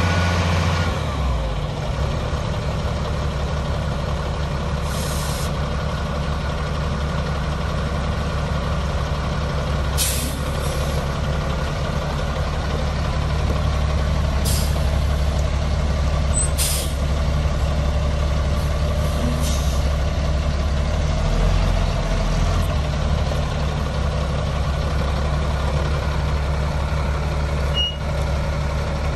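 2004 Freightliner FL70 box truck's diesel engine idling steadily, settling down from a higher speed about a second in. Several short hisses break in over the idle.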